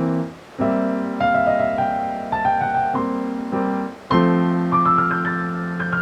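Background piano music playing a melody over sustained chords.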